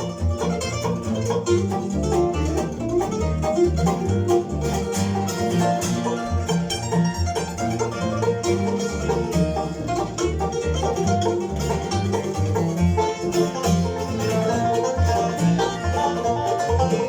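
Bluegrass band playing an instrumental break between verses, led by banjo over guitar and a steady bass line.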